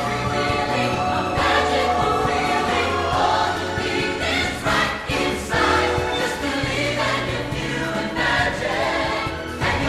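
Music with a choir singing sustained notes over an instrumental backing.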